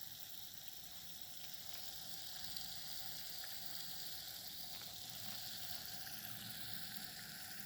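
Faint, steady fizzing of metal reacting with dilute hydrochloric acid: magnesium ribbon and zinc giving off a stream of hydrogen bubbles.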